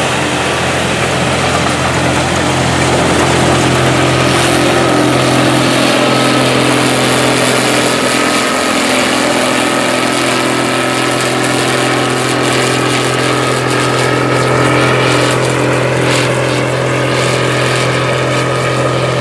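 Combine harvester running steadily while harvesting soybeans: an even engine and machinery hum with a steady high whine over it.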